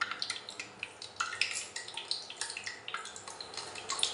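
Nigella seeds (kalo jire) spluttering in hot mustard oil in a pan: an irregular scatter of sharp little pops, several a second, over a faint sizzle, the sign that the oil is hot enough to temper the seeds.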